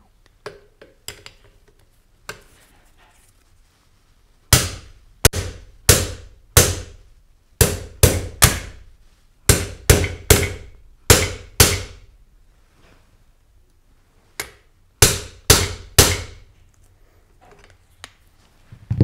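Hammer striking a metal spacer against an aluminium AK handguard, driving the handguard onto the rifle: a string of sharp, ringing metal blows in quick runs of three or four, starting about four seconds in.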